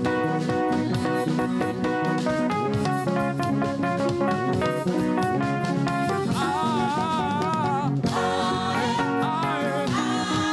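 Live gospel praise-band music with guitar and drum kit playing a busy, steady beat. A wavering lead melody line comes in about six and a half seconds in.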